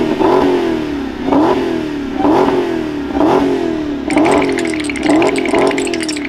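Dodge Challenger's V8 engine being revved in repeated throttle blips as it drives off, about once a second. Each rev climbs quickly and falls away.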